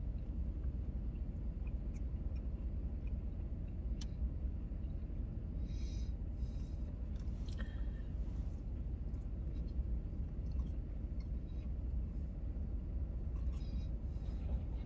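Vehicle engine idling, heard from inside the cab as a steady low rumble, with a few faint clicks and rustles.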